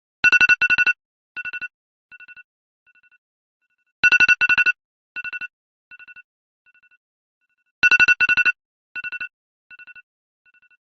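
iPhone alarm tone going off: two loud, rapidly pulsing two-note electronic beeps followed by fainter echoing repeats that die away. The pattern plays three times, about every four seconds.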